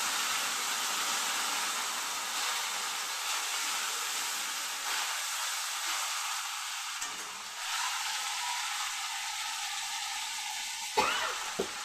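Ginger paste and whole spices frying in hot oil in a kadai, a steady sizzle. Two short knocks come near the end.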